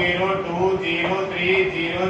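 A man speaking in a drawn-out voice that rises and falls in pitch without a break.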